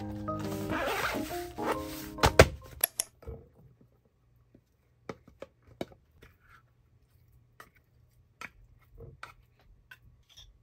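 Background music over a zipper being pulled shut on a fabric lunch bag, followed by a few sharp knocks as the music stops. After that come sparse, light clicks and taps of a spoon and containers over a glass bowl as cooked rice is scooped out of a plastic tub.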